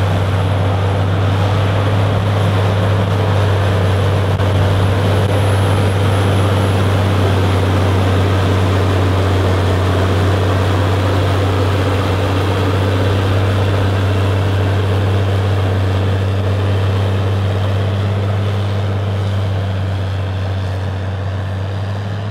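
Diesel engine of a wheeled log skidder running steadily with a deep, even drone, easing off slightly near the end.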